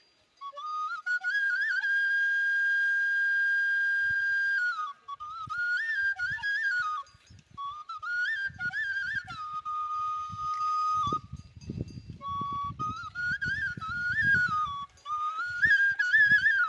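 Music: a solo flute melody of quick ornamented turns and one long held note, starting about half a second in and pausing briefly a few times.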